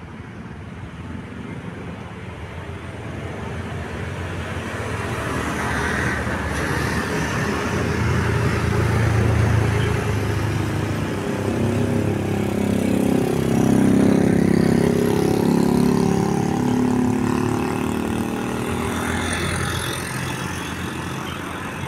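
A bus engine drawing near, growing steadily louder to a peak about two-thirds of the way through, then fading as it moves off.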